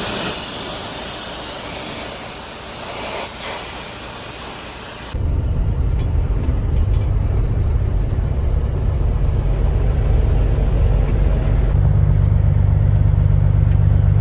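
A loud, steady hiss for about five seconds, cut off abruptly and replaced by a vehicle engine running with a steady low rumble.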